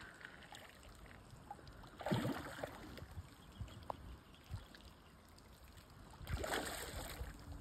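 A hooked carp splashing and thrashing at the water's surface near the bank, in two louder bursts about two seconds and six seconds in, over faint lapping water.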